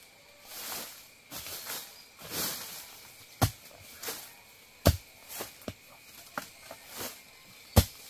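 Bamboo shoots being chopped off with a blade: three sharp knocks with lighter ticks between them. Before the knocks there is rustling of leaves and undergrowth.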